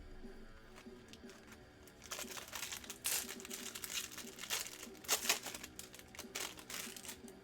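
Foil wrapper of a Bowman Jumbo baseball card pack being torn open and crinkled in the hands. The crinkling is loudest from about two seconds in until near the end.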